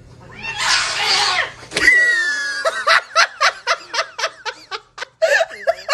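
A person laughing hard in rapid bursts, about five a second, starting near the three-second mark. Before that comes a breathy gasp and a brief high squeal.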